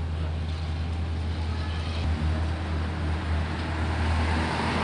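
Road traffic on a town street: a low steady rumble, with the hiss of a vehicle swelling as it passes near the end.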